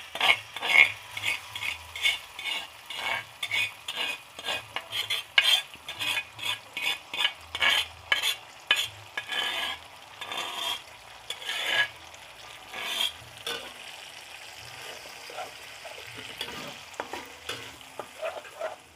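Metal spoon scraping ground tomato sambal out of a clay cobek into a wok of hot oil, in quick repeated strokes, while the paste sizzles as it starts to fry. About two-thirds of the way through the scraping stops, leaving steady sizzling with occasional stirring in the wok.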